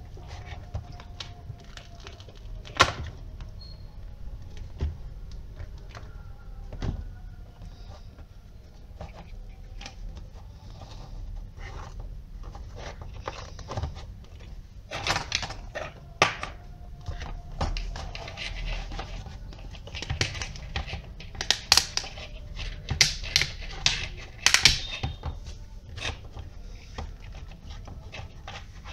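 Clear plastic box and its wiring being handled: scattered clicks and knocks of hard plastic, with a busier run of sharp clicks in the second half.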